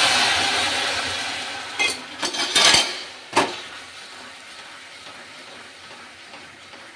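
Water hitting hot caramelised sugar in a non-stick kadhai, sizzling loudly at first and dying down over about three seconds. A spatula stirring the caramel knocks against the pan a few times about two to three seconds in, then only a faint sizzle remains.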